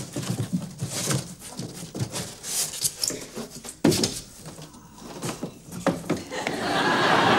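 Cardboard box and packing rustling and crackling as a small portable television is unpacked, with scattered clicks and one sharper knock about four seconds in. Near the end a louder, denser stretch of noise sets in.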